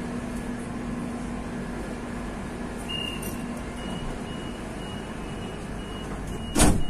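Metro train carriage interior: steady running noise with a low hum that fades about three seconds in. From then on a short, high electronic beep repeats about twice a second, and a loud single thud comes near the end.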